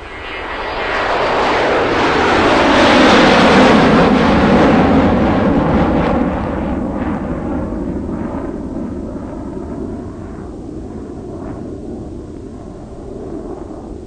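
An aircraft flying over: engine noise that swells over the first few seconds, peaks, then fades slowly, with a whooshing sweep that slides down in pitch as it passes.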